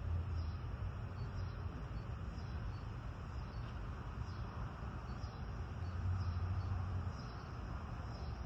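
Outdoor ambience: an uneven low wind rumble on the microphone, swelling near the start and again around six seconds in, with a faint high insect chirp repeating about once a second.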